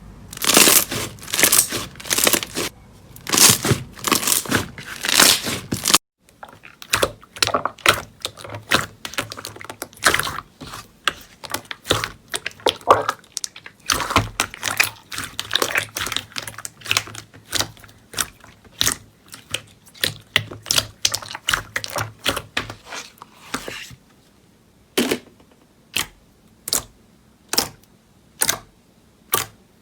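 Slime being squeezed, poked and pressed by hand, giving dense crackling, clicking and popping. Near the end it thins to single sharp clicks or pops about every half second.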